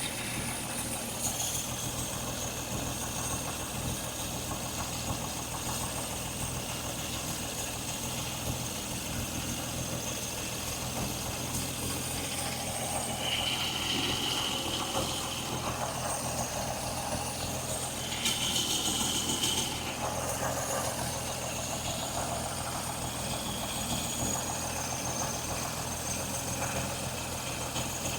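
Vauxhall Royale's 2.8 litre CIH straight-six engine idling steadily at its set idle speed while its carburettor mixture is tuned, running smoothly. About halfway through, and again a few seconds later, a brief higher-pitched sound rises over it.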